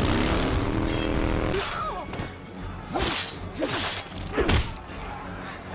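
A motorcycle engine running for about a second and a half, its pitch rising slightly. Then fight sounds: hard punch impacts with whooshes and grunts, about three times, from around three seconds in.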